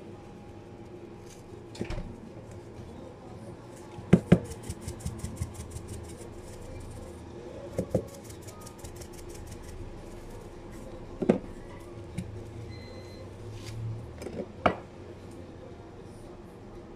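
Food-prep handling at a sushi counter: a handful of sharp knocks and clatters of utensils and containers set down or moved, with two spells of rapid fine ticking in the middle, over a steady low hum.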